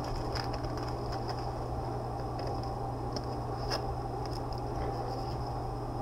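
Room tone with a steady low hum and a few faint clicks, the clearest one a little over halfway through.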